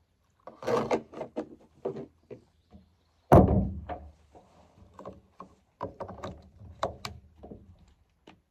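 Wood knocking and snapping as fallen branches are handled: a run of irregular knocks and cracks, with one heavy thump a little over three seconds in.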